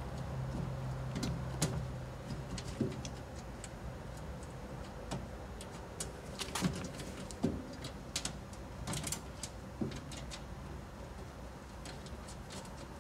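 Machine screws being threaded in by hand into the sheet-metal side panel of a vibratory tumbler: scattered small metallic clicks and taps, the loudest a little past the middle.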